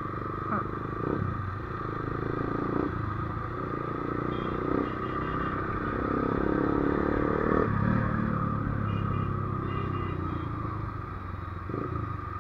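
Motorcycle engine running steadily in traffic, with wind and road noise. About halfway through its pitch climbs for a few seconds as it accelerates, then drops off abruptly.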